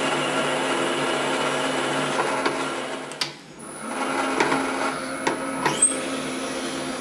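Benchtop drill press running, a 5.8 mm twist drill boring into a linen-phenolic plate. The steady motor hum dips briefly about halfway through, then the cut resumes with a few light clicks.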